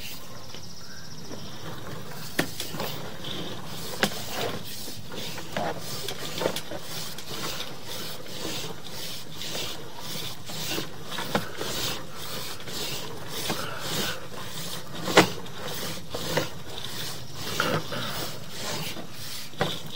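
Sewer inspection camera's push cable being pulled back out of the line: a string of irregular knocks, clicks and rubbing over a steady background noise, with the sharpest knock about two-thirds of the way through.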